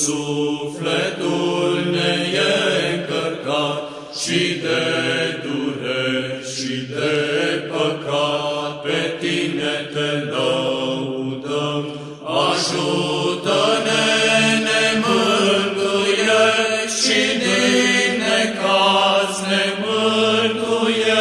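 Slow sung chant: voices holding a melody over a sustained low drone note.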